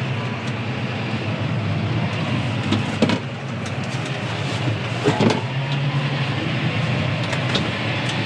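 John Deere 6R tractor running steadily, heard from inside the cab as a low hum, with a few knocks or rattles, the loudest about three seconds in and again about five seconds in.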